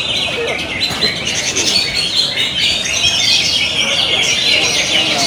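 Many caged cucak ijo (greater green leafbirds) singing together, a dense, continuous tangle of overlapping chirps and trills.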